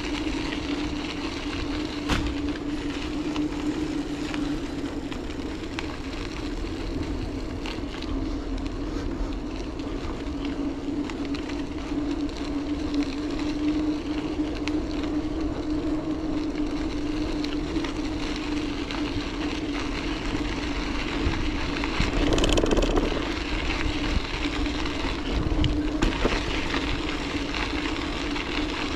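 Bicycle riding, heard from a camera on the bike: tyres rolling and wind rumbling on the microphone, with a steady low hum throughout. The noise swells briefly about three-quarters of the way through.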